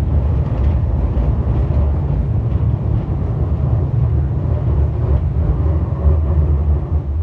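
Light-rail tram running along its track, heard from inside the car as a steady low rumble.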